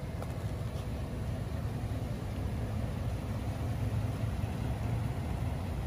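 Ambulance engine idling with a steady low rumble.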